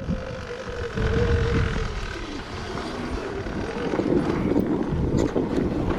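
Electric dirt bike's motor whining, its pitch falling over the first few seconds, over a steady low rumble of wind buffeting the microphone.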